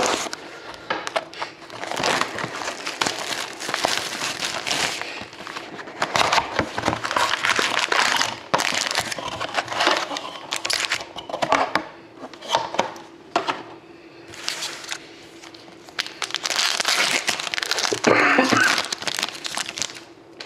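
Plastic shrink-wrap and card-pack wrappers crinkling and tearing in irregular bursts as trading card packs are opened, with cards rustling and sliding in the hands.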